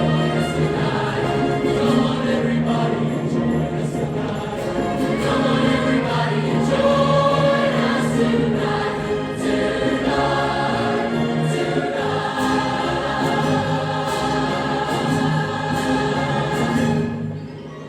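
A choir singing, in long held notes that change every second or so; the sound dips briefly near the end.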